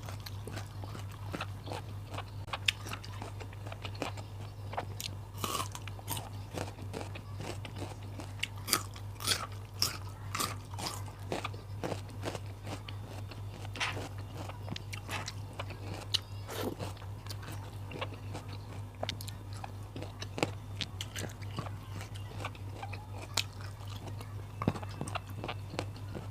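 Close-up biting and chewing of crunchy raw vegetables, with irregular wet crunches and crackles, over a steady low hum.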